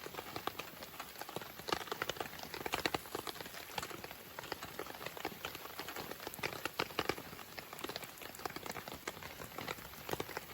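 Wood campfire crackling, with many irregular sharp pops over a light hiss.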